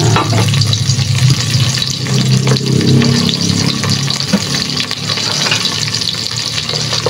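Sliced shallots, garlic and ginger sizzling in hot ghee and cooking oil, with a steady crackling hiss. A low steady hum runs underneath.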